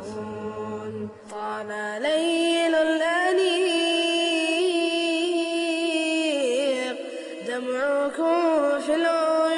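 Arabic Islamic nasheed: a solo voice chants long, ornamented held notes over a steady low drone, with no drums.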